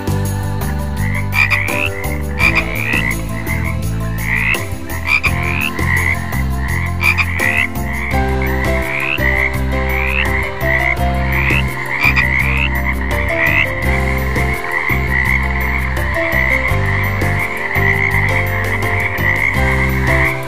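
Frogs calling: short, rising chirps repeated about twice a second, thickening into a continuous croaking chorus about two-thirds of the way through, over a steady low hum.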